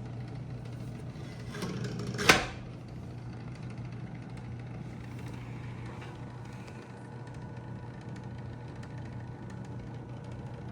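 Smith Corona Electra 110 electric typewriter's motor running with a steady hum. About two seconds in, a short rising rush ends in one loud clack from the machine.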